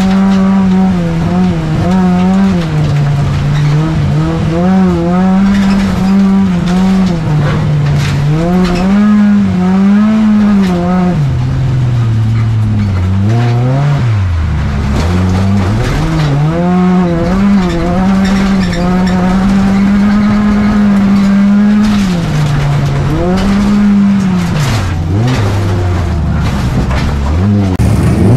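Volvo 245 folkrace car's engine heard from inside the cabin. It revs up and down again and again through the corners, with deeper drops in revs about halfway through and again near the end.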